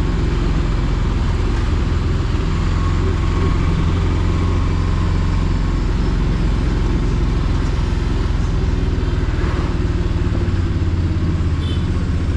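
Auto rickshaw's small engine running steadily as it drives along, heard from inside the open passenger cabin with road noise around it.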